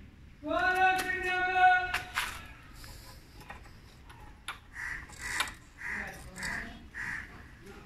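A voice holding one long, pitched note for about a second and a half, then fainter short sounds.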